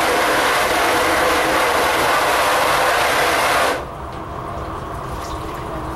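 Water hose spray nozzle hissing steadily against a silkscreen, rinsing the still water-soluble, unexposed emulsion out of the stencil. The spray cuts off suddenly a little past halfway, leaving a quieter low background.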